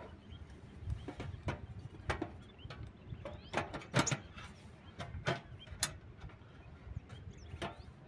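Butane gas canister being fitted into a portable camping gas stove: about a dozen irregular sharp metallic clicks and knocks, the loudest about four seconds in.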